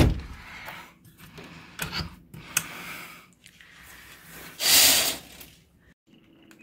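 A sharp knock, scattered clicks and handling noise, then a louder half-second scraping rush about four and a half seconds in, typical of a sliding window being pushed shut on its track.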